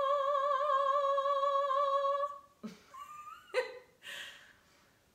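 A woman sings one long operatic note with vibrato for about two seconds, then a short rising voice sound and a few brief breathy voice sounds follow.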